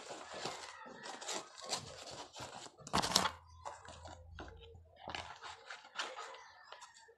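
Irregular rustling and crinkling handling noises close to the microphone, with a louder crunching tear about three seconds in.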